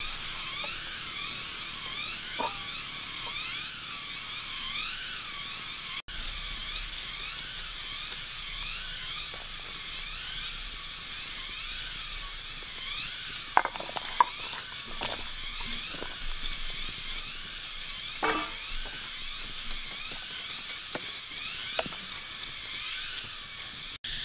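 Steady high-pitched hiss of an insect chorus in the forest, with a warbling call repeating over the first few seconds and scattered small crackles from the campfire later on; the sound drops out for an instant about six seconds in.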